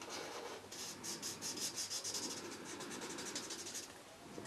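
Winsor & Newton Pro Marker alcohol marker nib rubbing back and forth on paper in quick repeated strokes, filling in a grey swatch square; the strokes stop shortly before the end.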